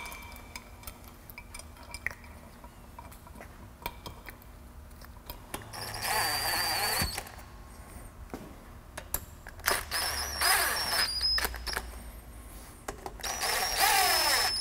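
Cordless drill-driver running in the bolts of a Ford 8.8 differential rear cover, in three short bursts of whining motor. Light metallic clicks from handling the bolts and cover come in between.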